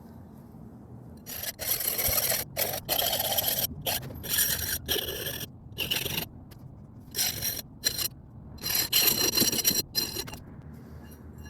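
A hand file rasping on the steel of a forged knife blank in a series of strokes with short pauses between them, shaping or cleaning up the blade.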